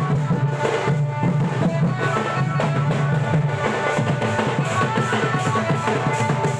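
Baja party dance music: a steady drum beat with bass drum and snare under a repeating melody line. The beat turns busier about halfway through.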